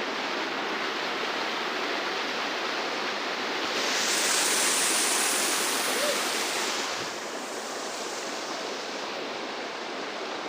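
Waterfall: a steady rush of falling water. It grows louder and brighter for a few seconds in the middle, then settles back.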